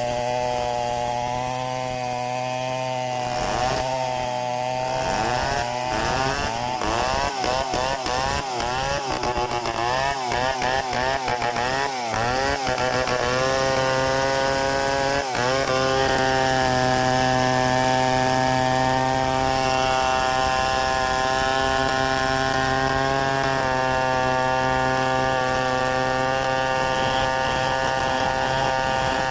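Two-stroke chainsaw running at high revs through mahogany. Its engine note wavers up and down for about ten seconds, then holds steady as the saw runs through the cut.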